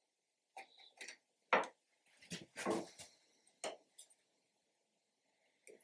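Marking knife scoring a knife wall into wood along a metal square: a series of about eight short scratching strokes, the longest near the middle.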